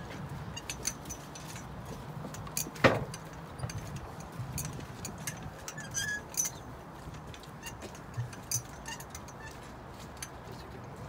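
Scattered light clicks and knocks over a low steady hum, with one sharp, louder knock about three seconds in.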